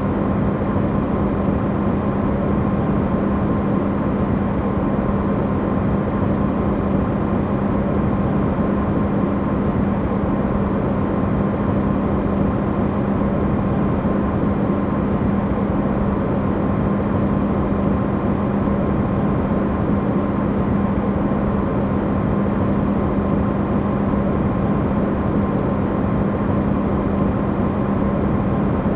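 Amplified recording of an Electrolux refrigerator running: a steady low hum with an even rushing noise, unchanging throughout.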